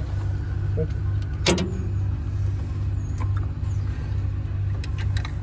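Tractor engine running steadily at idle, with one sharp click or knock about one and a half seconds in.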